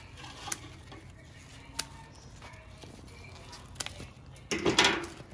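Hand pruning shears snipping rose stems, with a sharp click about half a second in and another near two seconds, then a louder rustle of rose leaves and stems being handled near the end.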